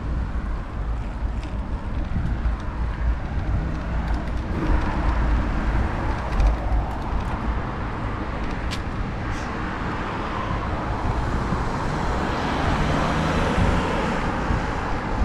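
Wind rumbling over an action camera's microphone while riding a bicycle, with car traffic passing on the road alongside and a few light clicks. The noise swells a little near the end.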